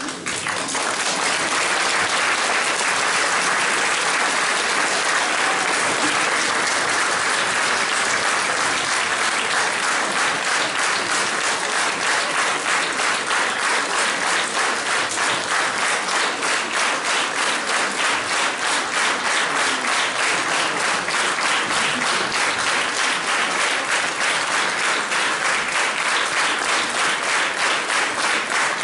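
Audience applauding, the clapping settling into a steady rhythm in unison about ten seconds in.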